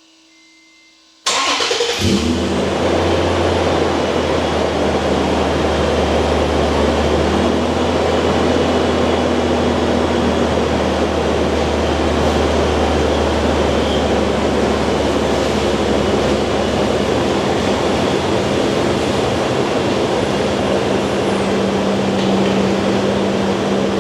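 Car engine running steadily, cutting in abruptly about a second in. A low steady hum under it gives way to a slightly higher steady tone about two-thirds of the way through.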